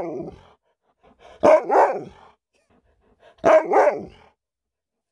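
Alaskan malamute 'talking' in short two-syllable vocal calls that bend in pitch: one tails off at the start and two more follow about two seconds apart.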